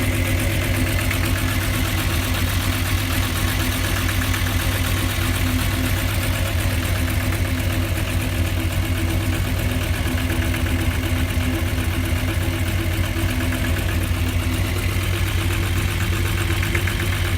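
Volkswagen Jetta's 2.8-litre VR6 engine idling steadily once warmed up, with a continuous light rattle in its running. The owner guesses the rattle may come from the timing chain tensioner.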